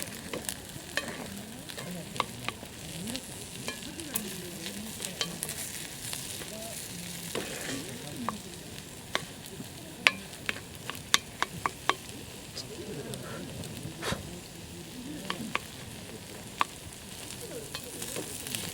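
Food sizzling in a cast-iron skillet over a wood campfire, with a steady hiss and many sharp pops and crackles, thickest a little past the middle.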